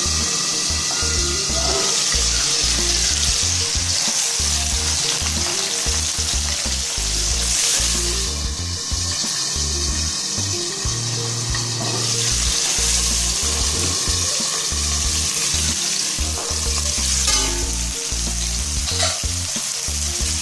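Diced raw potato sizzling steadily in hot oil and ghee, with a spoon stirring it around the pan now and then.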